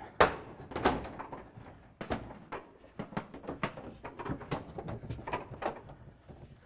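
Irregular wooden knocks and bumps as a sauna's wooden roof panel is shifted into place on top of the wall panels. The loudest come just after the start and about a second in, followed by a run of lighter knocks.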